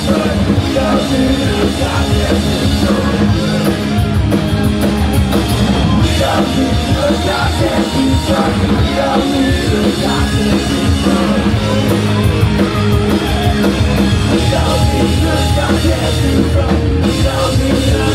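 Punk rock band playing a song live, with electric guitars and singing, loud and steady throughout.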